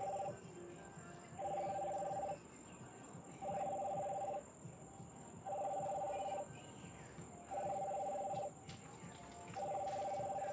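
Phone ringing tone on an outgoing call: a two-note electronic beep about a second long, repeating every two seconds, six times.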